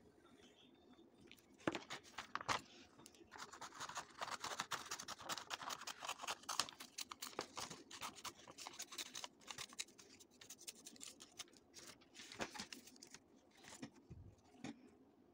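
Close-up scratching and rustling handling noises with many small clicks, heaviest through the middle.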